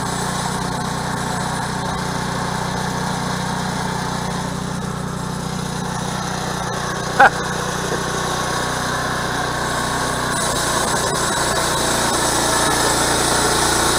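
Woodland Mills HM122 portable bandsaw mill running steadily as its saw head travels along a log, cutting boards. It grows a little louder toward the end as the head comes nearer. There is one short sharp knock about seven seconds in.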